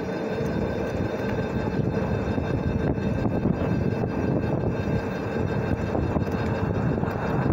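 Electric bike riding along a paved road: a steady motor whine over a rumble of tyre and wind noise.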